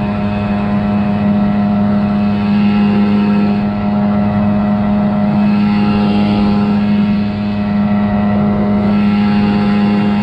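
Johnson outboard motor running flat out at a steady pitch, driving a small inflatable dinghy along a river, with water rushing past the hull.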